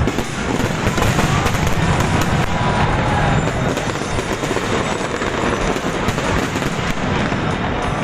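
Fireworks display going off continuously: many overlapping bangs and crackles blending into a steady din.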